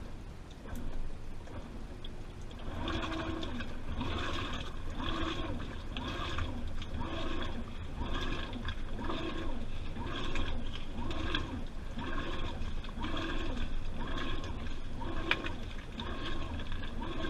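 Washing machine in its wash cycle: the drum turns back and forth with water sloshing inside, a motor whine rising and falling about once a second. The rhythm sets in about two and a half seconds in.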